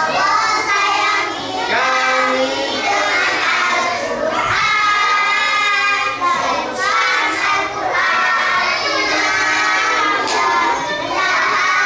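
Young children chanting a prayer together in a sing-song melody, with short breaks between phrases.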